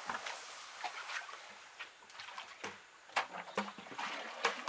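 Muddy water sloshing and splashing as a plastic bucket is dipped and filled, with several sharp knocks and clatters of the bucket.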